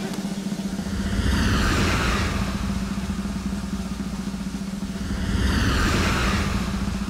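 Dramatic background score: a held low note under a fast drum roll, with two swelling whoosh sweeps, about a second and a half in and again near six seconds.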